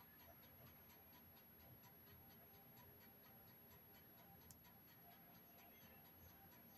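Near silence: room tone with a faint, even ticking, about three or four ticks a second, and one sharp click about four and a half seconds in.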